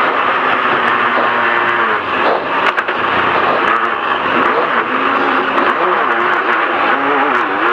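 2.0-litre turbocharged off-road race car engine running hard under load, its pitch rising and falling with the throttle over a constant rush of wind and tyre noise.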